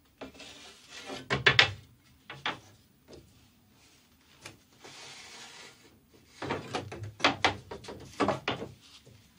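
A wooden board and wooden parts being handled: two bursts of knocks, clicks and scrapes of wood on wood, with a soft rub between them.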